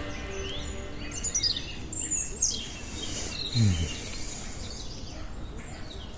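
Songbirds chirping and calling, a run of short high chirps over a steady outdoor background hiss. A brief low falling sound comes about three and a half seconds in.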